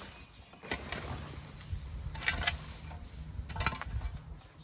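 A spade digging and scraping into a heap of compost and straw, in three strokes about a second and a half apart.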